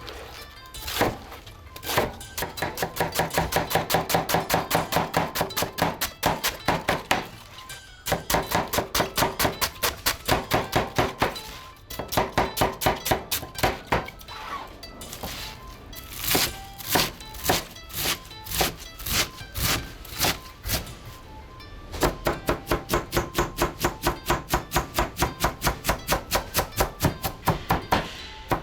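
Knife chopping rapidly on a cutting board, about four or five strokes a second, in several runs broken by short pauses.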